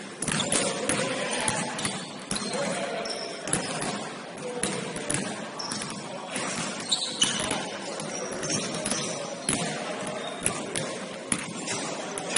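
Basketball game sounds: a ball bouncing on the court at irregular intervals, with short high sneaker squeaks and players' indistinct calls.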